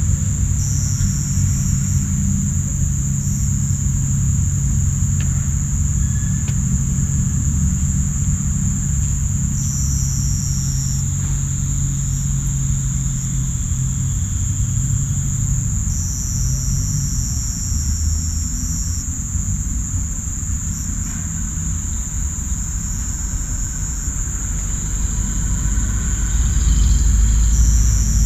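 Loud, steady chorus of crickets and cicadas: one constant high-pitched drone, with other insects joining in short bouts of a few seconds several times. A low rumble runs underneath and grows louder near the end.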